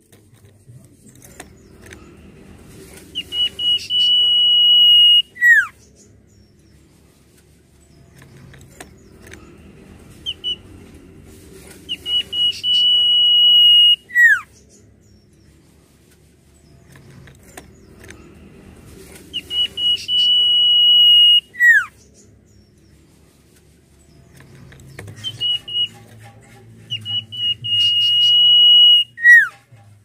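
Common iora (cipoh) singing its long whistled song four times. Each phrase has a few short notes, then a steady high whistle held for about two seconds that ends in a quick downward slur.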